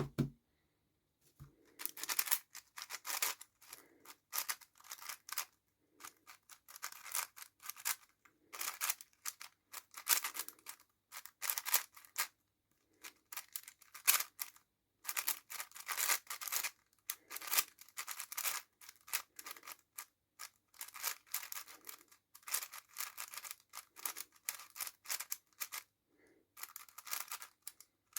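A 5x5 speedcube being turned fast by hand: quick runs of plastic layers clicking and scraping against each other, broken by short pauses. It starts about two seconds in.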